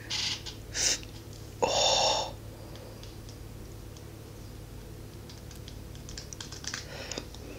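Fingertips working foaming shower gel on the back of a hand, with small wet clicks and squelches from the foam that come thickest towards the end. About two seconds in there is a short breath-like rush of noise.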